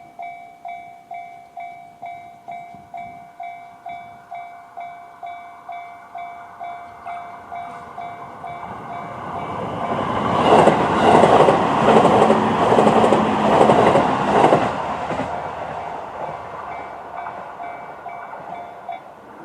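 Japanese level-crossing alarm bell sounding the JR standard electronic tone, ringing about one and a half strikes a second. About ten seconds in, an E257-series electric train passes through, its wheels clattering rhythmically over the rail joints for about five seconds. The bell stops just before the end.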